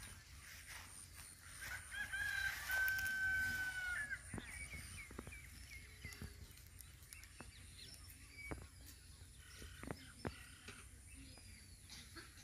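A rooster crowing once, a call of about two seconds ending in a long held note. After it come scattered soft clicks and rustles of a goat cropping grass.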